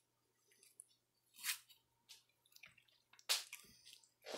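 Faint squishing and crinkling of an MRE peanut butter pouch being squeezed out. It comes as a few short, soft sounds, the two loudest about one and a half and three seconds in.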